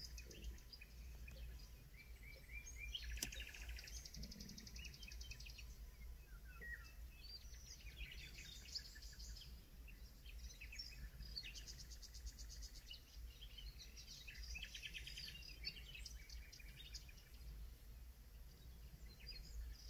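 Faint songbirds chirping and trilling, with a low steady rumble beneath and a single click about three seconds in.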